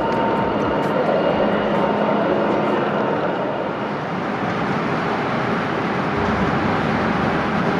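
Garden-scale model trains running in a busy exhibition hall: a steady noisy rumble of wheels and hall hubbub, with a low hum that stops about four seconds in.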